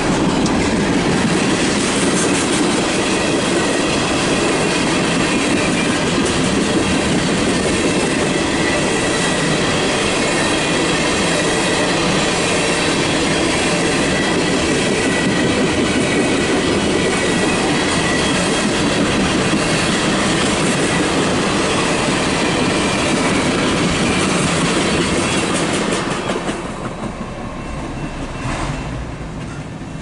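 Freight train of oil tank cars rolling past: a steady rumble of steel wheels on rail with clicking over the rail joints and faint wheel squeal. The sound eases off about 26 seconds in.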